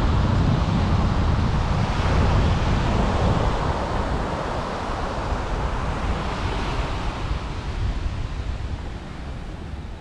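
Wind buffeting the microphone over the steady wash of ocean surf on a beach; the low wind rumble is heaviest in the first few seconds and eases after that.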